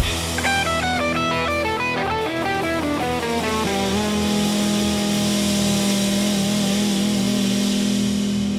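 Electric guitar played through a Fender 15-watt guitar amp. It plays a quick run of notes, then holds a ringing note from about four seconds in.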